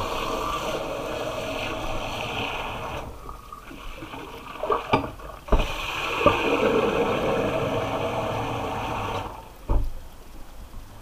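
Cold water running from a kitchen lever tap into a plastic tub in a stainless steel sink. The flow stops about three seconds in, a few knocks follow, it runs again, and it stops near the end with another knock.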